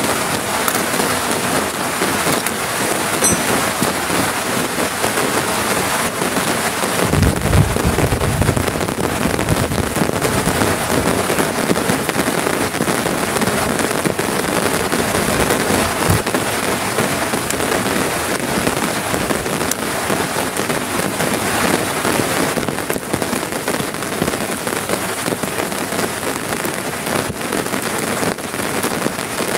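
Heavy rain falling steadily, a dense even hiss, with a brief low rumble about seven seconds in.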